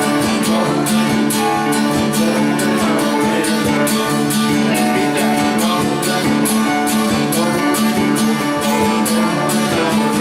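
Live band playing an instrumental passage between sung verses: strummed guitar over held notes, with a steady beat of sharp hits.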